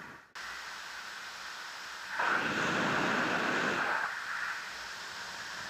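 Wind rushing over the camera microphone of a paraglider in flight, a steady hiss that grows louder for about two seconds in the middle.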